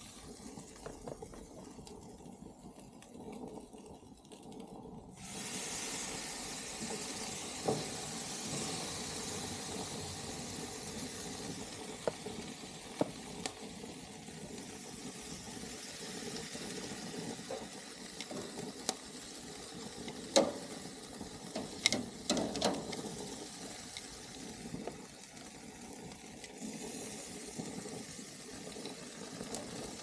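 Chicken sizzling on a hot gas barbecue grill as pieces are laid onto the grate, the sizzle growing louder about five seconds in. Metal tongs click against the grate now and then, most sharply near the middle.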